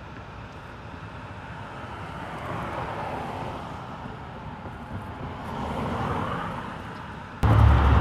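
Street noise from a passing car, picked up by a Rode VideoMic Pro: a hiss of tyres and engine that swells and fades twice. Near the end the sound jumps suddenly much louder, with a steady low rumble, as the mic's +20 dB gain setting takes over.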